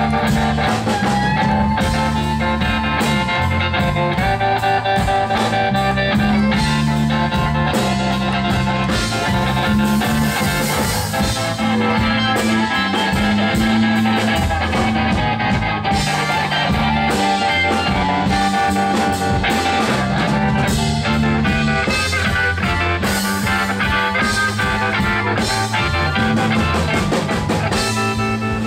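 Live electric blues band playing an instrumental passage: amplified blues harmonica cupped against a microphone, with electric guitar, electric bass and drum kit. The harp holds and bends long notes over a repeating bass line.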